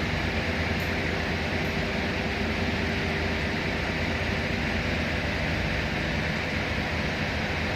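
Steady machinery drone: an even hiss over a low hum, with no change in level.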